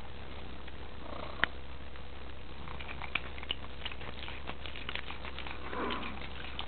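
A cat chewing on plastic: irregular sharp crackles and clicks of the plastic between her teeth, the loudest a single snap about a second and a half in.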